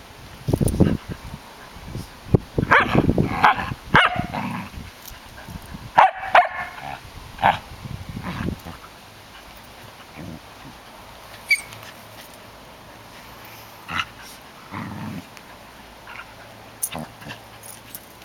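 A Samoyed and a Sheltie puppy in rough play, with short barks and yips. The sounds come thick and loud over the first eight seconds or so, then only a few scattered ones.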